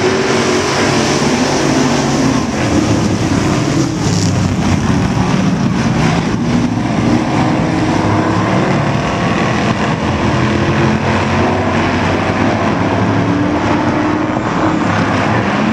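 A pack of factory stock race cars running together at race speed, their engines blending into a loud, steady drone of overlapping pitches that shift as the cars lap.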